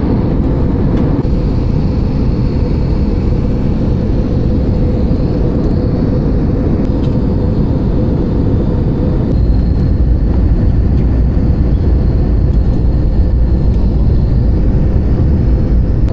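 Airliner cabin noise: a steady loud rumble of engines and airflow with a constant hum, growing a little heavier in the low end about nine and a half seconds in.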